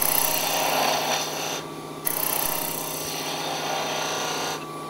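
A turning tool cutting a spinning wooden blank on a wood lathe: a hiss of shaving in two passes with a short break about one and a half seconds in, over the steady hum of the lathe's motor. The cutting stops near the end, leaving the lathe running.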